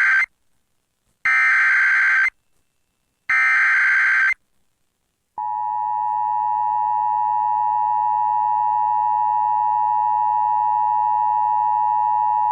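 Emergency Alert System header: the tail of one SAME digital data burst, then two more buzzing data bursts about a second long each, a second apart. About five seconds in, the steady EAS two-tone attention signal starts and holds. It announces a severe thunderstorm warning.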